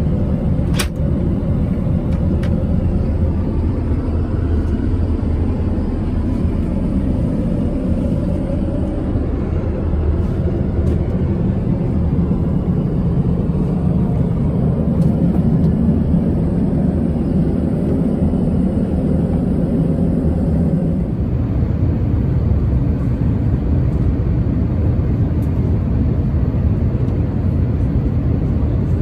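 Steady low roar of an Airbus A350-900 heard from inside the passenger cabin: engine and air noise, with a brief click about a second in and the hiss thinning about two-thirds of the way through.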